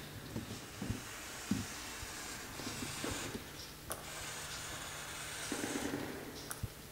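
A marker drawing long lines on a painted wall: a scratchy hiss with each stroke, the longest strokes from about two and a half to six seconds in. There are a few soft knocks in the first second and a half, and a steady low hum underneath.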